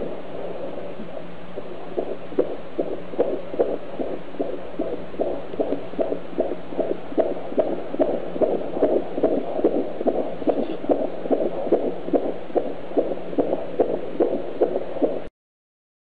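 AngelSounds fetal Doppler's speaker playing an unborn baby's heartbeat: a fast, whooshing pulse of about two beats a second over a steady hiss. The pulses grow clearer after about two seconds, and the sound cuts off suddenly near the end.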